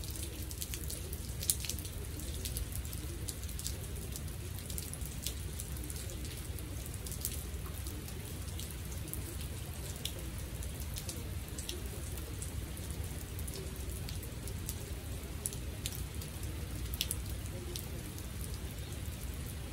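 Steady rain falling onto flooded hard courts and standing water, with scattered sharp ticks of single drops landing close by over a low steady rumble.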